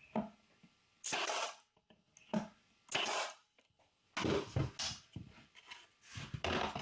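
A pin nailer firing about five times at irregular intervals, each shot a sharp crack with a brief hiss, driving pins to fix wooden wedges in place.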